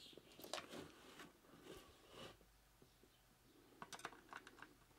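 Near silence, with a few faint clicks and knocks as the soup maker's plastic base is handled, and a small cluster of them near the end.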